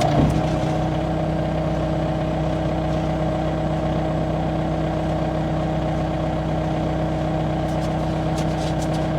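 A vehicle engine idling steadily: an even, unchanging hum with no revving.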